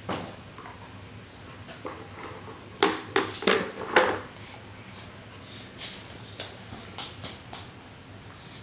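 Sharp knocks and clatter of a small plastic toy basket being handled and banged by a toddler: a quick cluster of four or five knocks about three seconds in, then a few fainter ones later.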